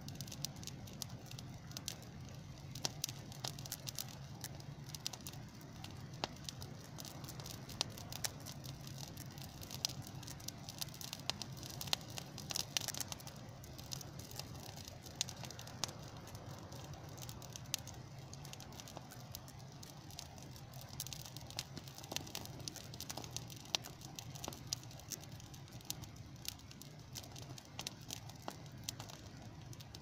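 Small outdoor brush fire of dry twigs and grass crackling, with dense, irregular pops and snaps throughout over a steady low hum.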